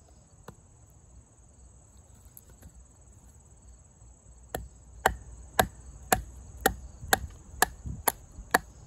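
A wooden baton knocking on the spine of a LionSteel M7 fixed-blade knife, driving it down through a dense log. The sharp knocks start about halfway through and come about twice a second. A steady high insect trill runs behind.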